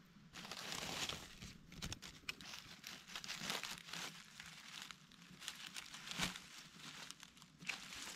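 Dry leaf litter rustling and crackling in irregular bursts, with a sharper crack about six seconds in, as hands search the forest floor and pick wild mushrooms.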